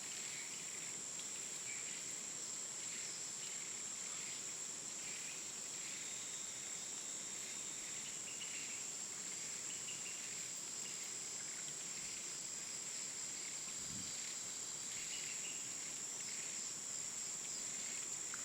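A steady high-pitched whine that does not change, with faint, irregular chirps underneath, like insects in the background.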